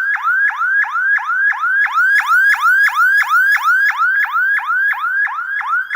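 Electronic 'chóa chóa' siren horn, a unit rated 24 V running on a 12 V supply, sounding a fast repeating rising chirp about four times a second.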